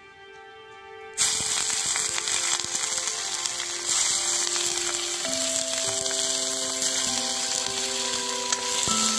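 Hot oil sizzling in an iron kadhai as chopped green chillies go in, the hiss starting suddenly about a second in. Background music plays throughout.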